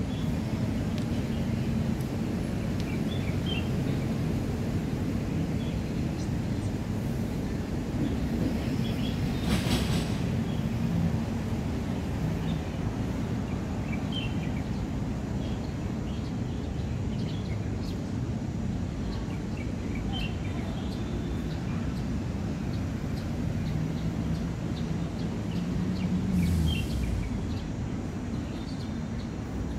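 Steady outdoor background rumble of distant city traffic, with scattered short bird chirps and a brief hiss about ten seconds in.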